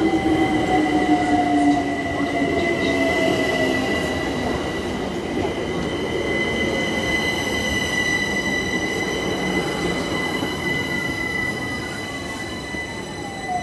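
London Overground Class 378 electric train slowing into the platform: its motor whine glides down in pitch as it brakes, with a steady high squeal over the rumble of the wheels. The sound gradually fades as the train comes to a stop.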